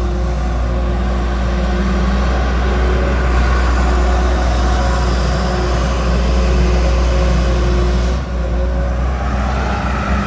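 JCB NXT JS 205 tracked excavator's diesel engine running steadily under load while the upper body swings and the boom moves. The sound dips briefly about eight seconds in.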